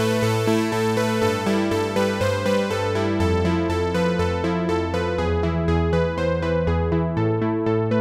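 Dave Smith Prophet-6 analog polyphonic synthesizer playing sustained chords, with the bass note changing about once a second. Its tone grows steadily duller, the highs fading away, as a panel knob is turned.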